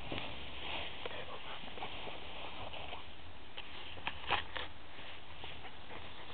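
Grass rustling close to a phone's microphone over a steady hiss, with a few sharp handling clicks about four seconds in.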